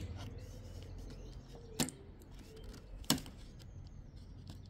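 Sharp clicks as the plastic roof-rail trim strip of a BMW M4 F82 is pried up and pops loose from its clips and the adhesive holding it down: three separate pops, one at the start, one just under two seconds in and one about three seconds in.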